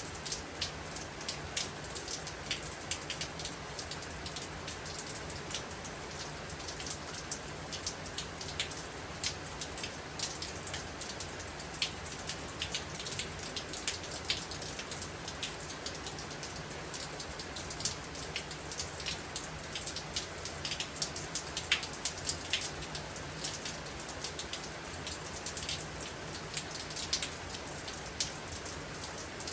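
Steady storm rain falling, with many individual drops tapping sharply and irregularly over a constant hiss of rainfall.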